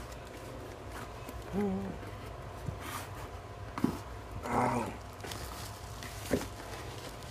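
Cardboard box flaps and bubble wrap being handled, with soft rustling and a few sharp knocks about three, four and six seconds in. Two short pitched sounds break in, about a second and a half in and just past the middle.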